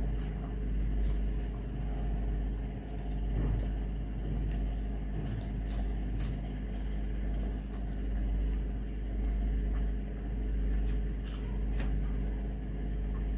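A steady low background rumble with a hum, and a few faint, scattered clicks and squishes from fingers mixing rice and curry on a metal plate.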